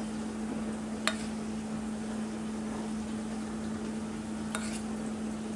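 A spoon lightly clicking against a bowl of glaze twice, about a second in and again near the end, over a steady low hum and faint hiss.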